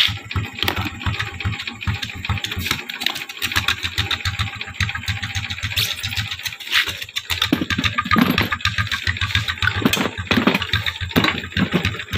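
Small motorcycle engine idling, a steady run of rapid firing pulses.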